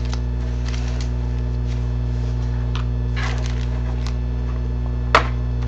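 Steady low electrical hum, with faint rustles from card packs being handled and one sharp tap about five seconds in.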